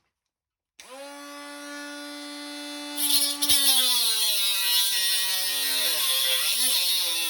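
Cordless mini angle grinder switched on about a second in, its motor spinning up to a steady whine; at about 3 s it starts cutting with a loud hiss and the motor pitch drops and wavers under the load.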